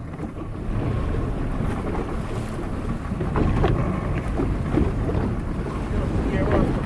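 Wind buffeting the microphone over the rush of choppy sea around a small open wooden boat, a steady low noise throughout.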